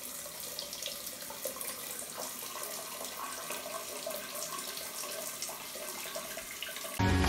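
Water running steadily and splashing onto a tiled bathroom floor and away down a just-unclogged floor drain, which is now flowing freely. Music cuts in abruptly at the very end.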